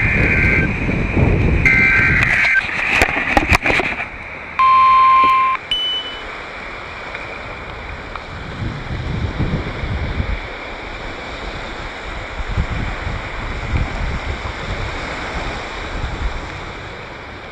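Weather radio alert: two short buzzy data bursts of paired tones, then a loud steady alert tone for about a second, about four and a half seconds in. After it, steady wind noise and surf under an approaching storm.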